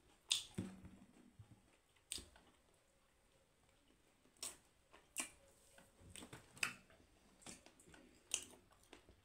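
Close-miked eating sounds: a person chewing roast chicken, with soft wet mouth smacks and clicks at irregular intervals.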